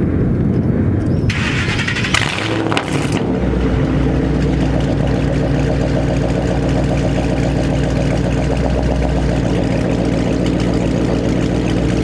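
2012 Shelby GT500's supercharged 5.4-litre V8 starting warm, not a cold start, through a loud exhaust with an off-road X pipe and resonator delete. It settles into a steady idle from about three and a half seconds in.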